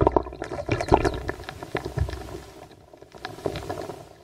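Low underground rumbling with irregular knocks and crackles, picked up by a microphone lowered 22 m down a borehole. It is loudest at the start and dies down near the end. The uploader takes it for tunnel work deep underground: dynamite blasting and rock drilling.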